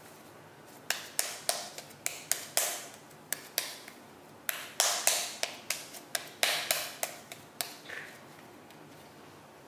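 Hands patting and slapping a ball of moist tofu and lupin-flake dough between the palms to shape it: a run of sharp pats about three a second, pausing briefly near the middle.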